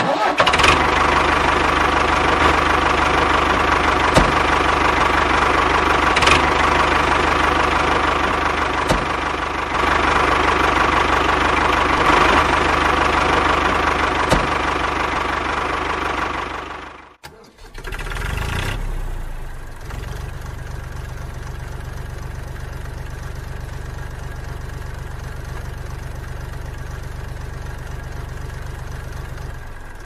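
A tractor engine running steadily, with a few sharp clicks. About halfway through it cuts out, and a quieter, lower engine settles into a steady idle.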